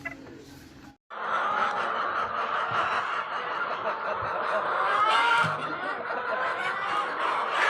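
Dense, continuous chatter of a large flock of chickens, many overlapping calls at once, starting abruptly after a brief silence about a second in.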